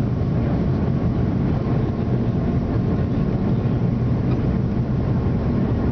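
Jet airliner cabin noise on approach to landing: a steady drone of the engines and rushing air with a low hum, heard from a window seat over the wing.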